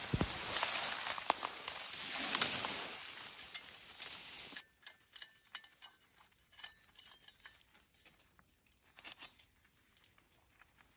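Dry grass and undergrowth rustling and crackling as someone pushes through it. About four seconds in, the sound drops suddenly to a much quieter stretch of faint, scattered rustles and clicks.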